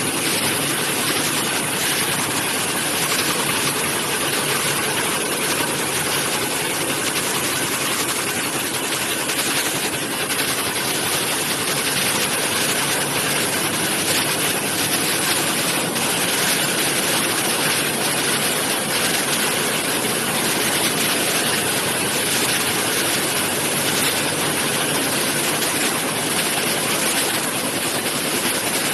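High-speed weaving loom running steadily at speed: a loud, even, dense mechanical noise with no pause or change.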